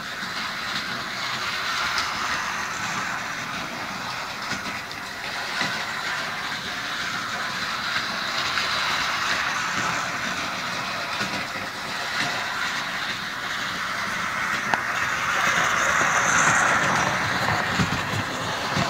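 HO-scale model train, a small diesel locomotive pulling two freight cars and a caboose, running around an oval of sectional track with a steady whir and rattle, a little louder about three-quarters of the way through.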